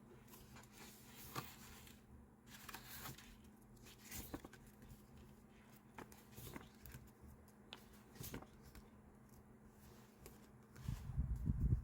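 Diary-decorating handling sounds: paper and stickers rustling with scattered small clicks and taps, then a louder run of low bumps near the end.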